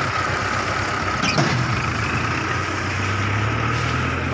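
Round straw baler running under engine power, a steady machine drone with one short knock about a second and a half in.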